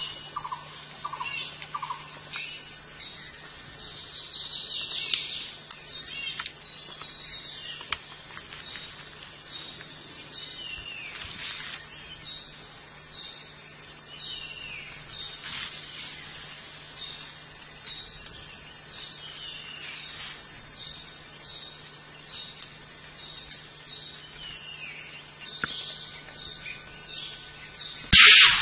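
Rainforest ambience: a steady high insect drone with birds calling, repeated down-slurred whistles every second or two. Near the end comes a single loud, sharp shot from a scoped hunting rifle, the loudest sound.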